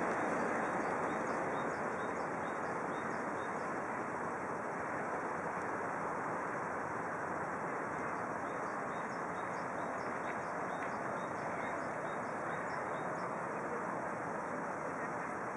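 Steady outdoor background noise of distant road traffic, with a small bird giving runs of short high chirps, a few a second, near the start and again in the middle.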